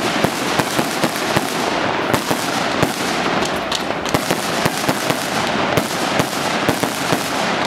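A 30 mm, 100-shot fireworks cake firing in rapid succession: sharp shots and bursts about two to three a second over a steady noise between them.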